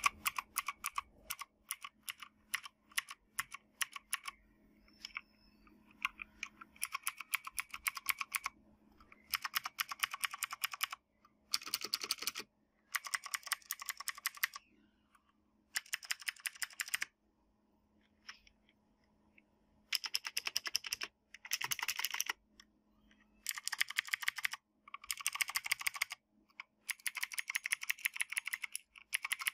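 Mechanical keyboard with clicky Outemu Blue switches being typed on: single key clicks at first, then repeated bursts of fast clicking a second or two long, with short pauses between.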